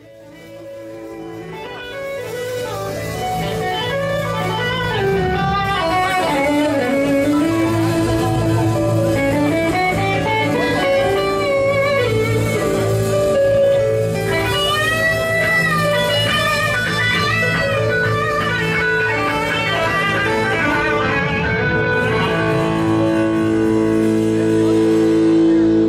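Live blues-rock band playing, with an electric guitar lead full of bent, gliding notes over bass and sustained chords. It fades in over the first few seconds.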